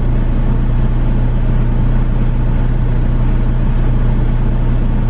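Vehicle engine idling, heard from inside the cab as a steady low hum that holds level without change.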